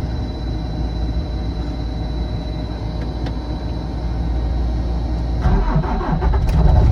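Diesel engine of a Bobcat S650 skid steer loader cold-started after waiting on the glow plugs: a steady low rumble, then about five and a half seconds in it cranks, catches and runs louder and steady.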